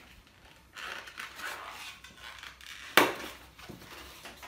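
Rubber twisting balloon being handled: latex rubbing and rustling, with one sharp snap about three seconds in.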